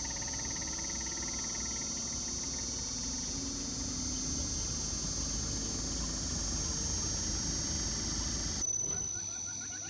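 An inverter air-conditioner outdoor unit running, with a compressor hum under a steady high-pitched electronic whine. About eight and a half seconds in, the sound changes abruptly: the low hum drops away and a thinner high whine remains.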